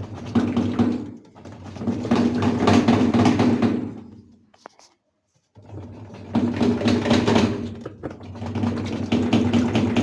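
Plastic agitator of a Brastemp 12 kg top-load washer being twisted back and forth and worked up off its splined drive shaft, grinding and scraping in repeated swells a second or two long, with a short pause a little before the middle.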